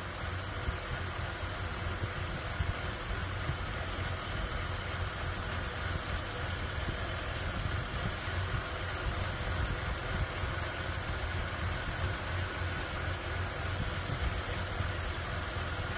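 2000 Ford F-150's 4.2-liter V6 idling with a lopey, uneven beat under a steady hiss. The rough idle comes from a vacuum leak at the soft, holed PCV valve hose elbow on the back of the intake, which propane enrichment is being used to find.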